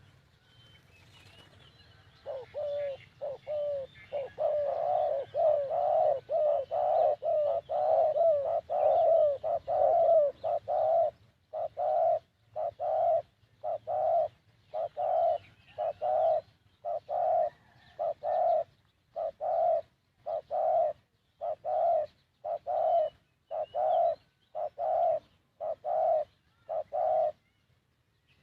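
Spotted doves cooing: a long series of short coos starts about two seconds in, packed closely at first and then evenly spaced, about three every two seconds.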